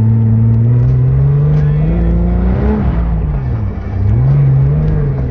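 Dune buggy engine heard from on board while driving over sand, running steadily under throttle, rising in pitch about two and a half seconds in, dropping off briefly as the throttle lifts near four seconds, then picking up again.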